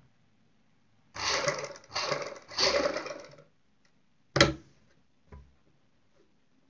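Sewing machine stitching gold lace trim onto cotton fabric in three short runs back to back, followed by a sharp click and a fainter knock as the work is handled.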